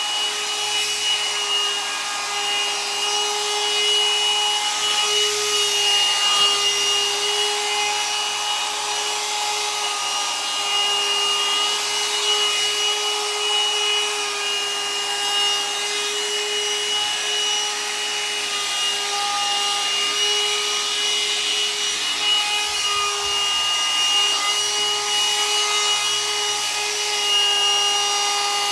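Hot-air dryer brush running steadily: a constant motor whine over a hiss of blown air.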